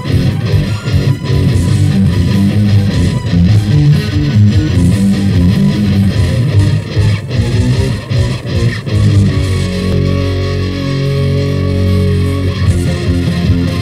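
Rock band demo recording from 1993, with electric guitar and bass guitar playing. From about ten seconds in the notes are held longer.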